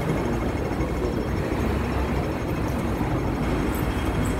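Steady low rumble and hiss of outdoor city background noise, with no single clear event standing out.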